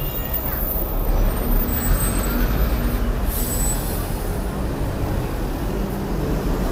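Hyundai Super Aero City city bus, its diesel engine running close by at a stop with a steady low rumble. About three seconds in there is a short hiss of air from its pneumatic brakes.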